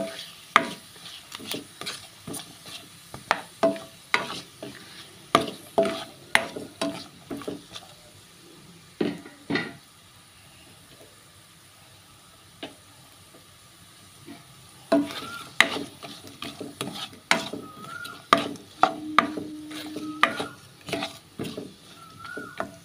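Spatula stirring and scraping chopped onions frying in oil with whole spices in a speckled nonstick pan, a light sizzle under quick runs of clicks against the pan. The stirring stops for about five seconds midway, leaving only the faint sizzle, then starts again.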